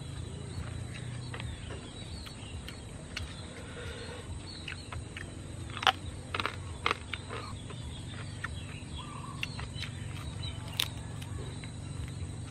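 A man eating crispy-fried dove with his fingers: chewing and lip-smacking, with a few sharp clicks about halfway through as his hand works in a stone sambal bowl. Faint bird chirps and a steady low rumble lie underneath.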